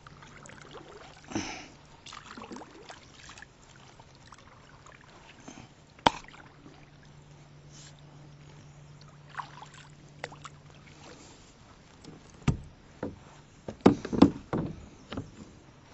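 Kayak paddle strokes, the blades dipping and swishing softly through calm water. About six seconds in there is a sharp click. Near the end come several louder hollow knocks, the loudest sounds, as the paddle is laid down against the plastic kayak.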